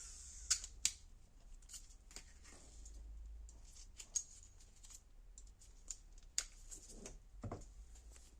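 Scattered light clicks and taps at irregular moments, like small hard objects being handled; the nail drill is not running.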